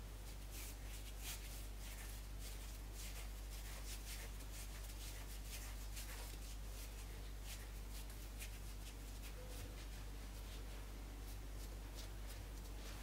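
Hands handling a ball of yeast dough on a floured wooden board, with soft, irregular rustling, rubbing and light pats as it is turned and pressed flat. A steady low electrical hum runs underneath.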